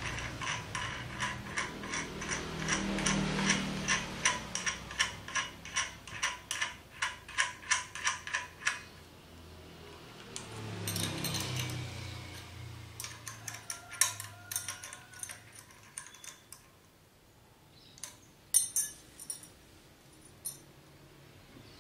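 Metal clicking from a hand-operated mini die-cutting roller press being adjusted: a steady run of evenly spaced clicks, about three a second, for the first nine seconds, then scattered clicks and a few sharp metal knocks near the end.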